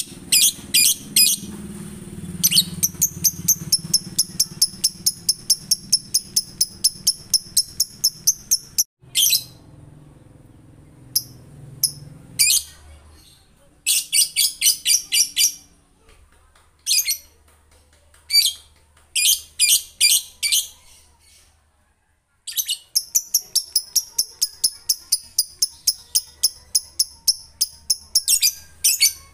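Male lovebird giving its ngekek call: long runs of rapid, shrill repeated chirps at about four or five notes a second. Several runs are broken by short pauses, and the longest lasts about six seconds.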